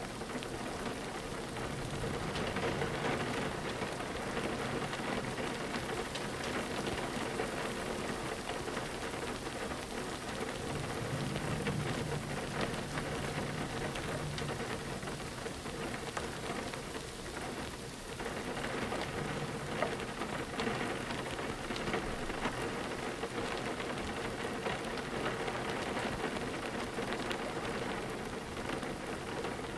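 Steady rain on a window pane, an even wash of sound with many small sharp drop ticks scattered through it.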